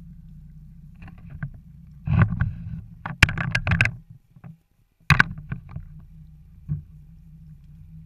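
Boat's outboard motor running steadily at trolling speed, a low drone. Over it come loud bursts of noise and sharp knocks, in two spells split by a brief dropout about halfway through.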